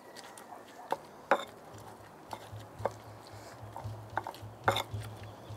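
Stone pestle crushing roasted coatecomates and green chiles in a clay grinding bowl: soft squishing with several sharp knocks of stone against clay. A low pulsing hum comes in about two seconds in.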